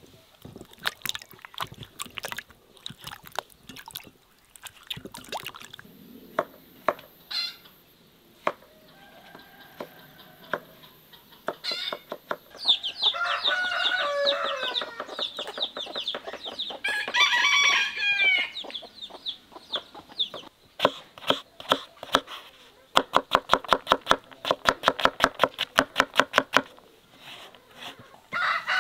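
A rooster crowing twice midway. Before and after, knife strokes on a wooden cutting board, ending in a fast, even run of chopping as potatoes are diced.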